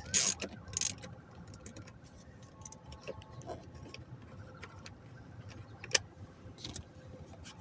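Scattered clicks and light metallic clinks of a socket ratchet with an extension turning out small dash-panel bolts, with a few sharper clicks in the first second and one about six seconds in.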